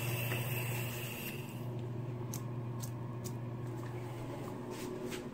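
Water running from a bathroom sink tap over a steady low hum; the water stops about a second and a half in. After that come several sharp clicks and knocks, while the hum carries on.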